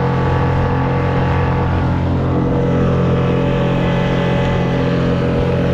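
Small outboard motor on a solo skiff running steadily under way, with water rushing past the hull.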